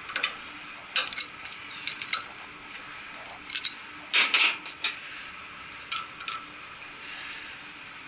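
Metallic clinks and knocks of a pipe wrench working a fitting loose on a cooling tower fan gearbox: about a dozen short, sharp strikes at uneven intervals, the loudest cluster about four seconds in.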